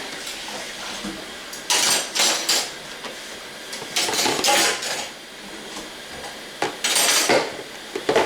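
Kitchen dishes and cutlery clattering and clinking in three short bouts, about two, four and a half and seven seconds in.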